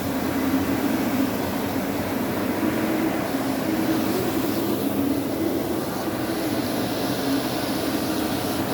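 Carpet-cleaning machine running steadily: a constant motor drone with a low hum that wavers slightly in pitch.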